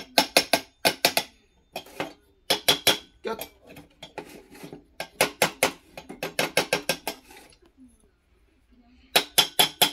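Bursts of rapid metallic clicking and tapping: a small metal tool worked against the brass burner top of an Alps 802 kerosene stove, trying to free a cap that is stuck and won't come off.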